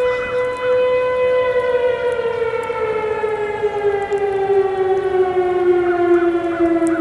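Distant mechanical outdoor warning siren sounding a long steady tone that glides slowly down in pitch.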